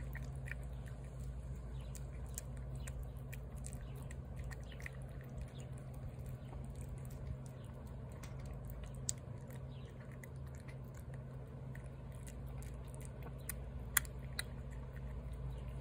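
Cat chewing and lapping shredded wet food from a paper plate: irregular small clicks and smacks, with one sharper click near the end, over a steady low background hum.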